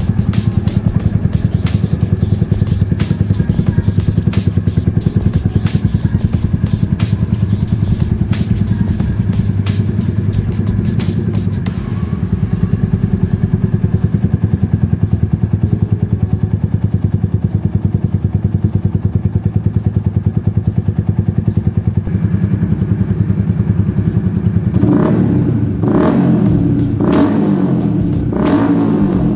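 Yamaha R15 v2's 150 cc single-cylinder engine idling loudly through a replica SC Project full exhaust, with a rapid, even exhaust pulse. Near the end the throttle is blipped several times, the revs rising and falling quickly.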